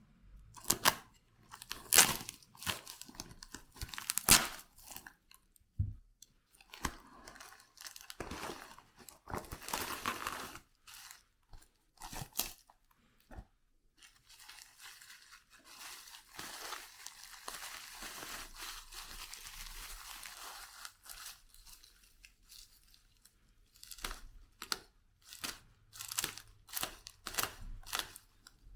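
A shipping bag and its packaging being torn open and unwrapped by hand: sharp crackles and rips, with a stretch of steadier rustling in the middle.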